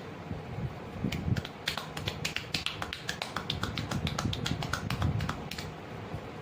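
Rapid run of sharp taps and clicks from a barber's hands during an Indian head massage, about six or seven a second, with dull low thumps under them. The taps start about a second in and stop shortly before the end.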